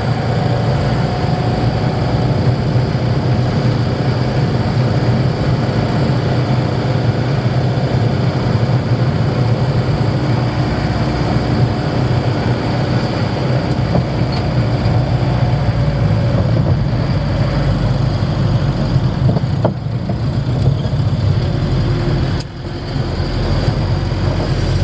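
Camper van engine running steadily with road noise, a low, even rumble that dips briefly near the end.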